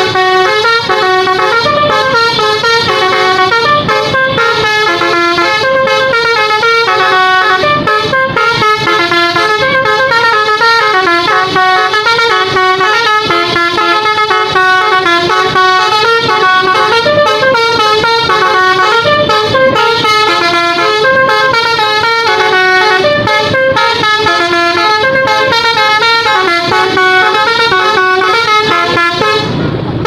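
Indonesian tour bus telolet horn, a bank of electric air-horn trumpets, playing a fast, unbroken tune of short stepping notes. It is loud and runs without a pause.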